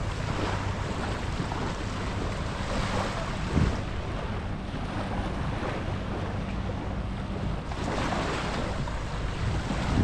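Waves washing onto a sand beach in swells, with wind buffeting the microphone. A low steady hum runs underneath and stops about eight seconds in, and there is a single short thump about three and a half seconds in.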